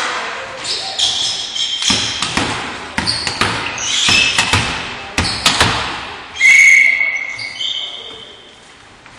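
Volleyball play in an echoing sports hall: repeated sharp slaps of the ball being hit and thudding on the court, with players' shouts over it. A loud, held high-pitched call comes about six and a half seconds in, then the sound dies down.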